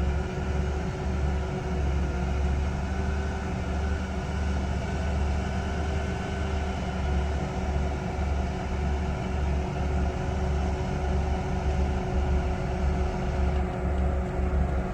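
Heavy diesel machinery running steadily, with a deep low rumble and a thin steady hum above it.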